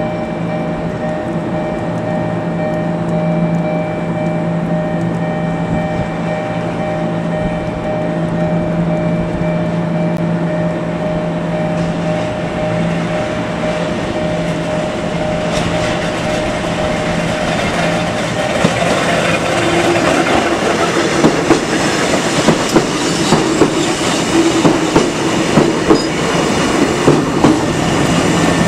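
Kotoden retro electric train hums steadily at the platform, then pulls away with the heavy growl of its traction motors under acceleration. Its wheels clack over rail joints about once a second, the clacks coming closer together as it gathers speed.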